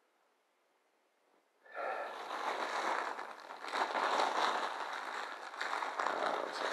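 Loud rustling and crackling close to the microphone, which starts suddenly about two seconds in and keeps on to the end.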